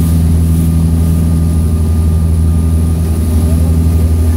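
Bavaria 37HT motorboat's engine running steadily at towing speed: a deep, even drone over the rush of churning wake water.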